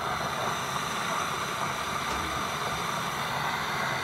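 Chefman glass electric kettle heating water towards the boil: a steady rushing noise.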